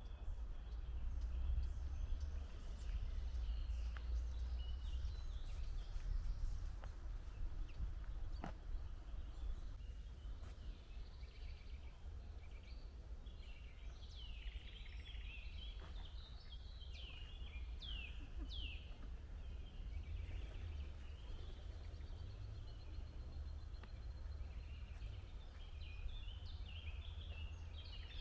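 Wild birds singing and calling, with a cluster of quick descending calls in the middle and more chirping near the end, over a steady low rumble.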